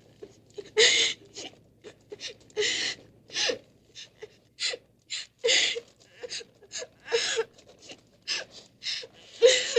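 A person crying in short, gasping, breathy sobs and sniffles, coming irregularly about once or twice a second, some with a faint whimpering voice in them; the strongest sob comes near the end.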